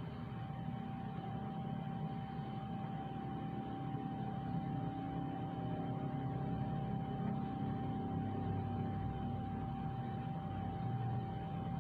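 A steady mechanical hum with a constant thin whine over a low, shifting rumble, like a small motor running.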